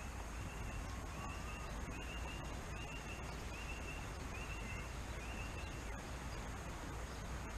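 Outdoor ambience: a steady hiss with a small bird repeating a short high call about six times, roughly one every 0.7 s, and a single brief rising whistle about a second in.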